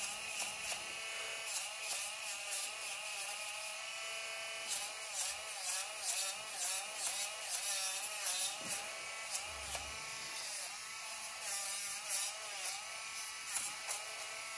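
Small cordless pet clipper running, its motor hum wavering in pitch as the blade is worked through the hair of a dog's paw pads, with short scratchy sounds of the blade cutting.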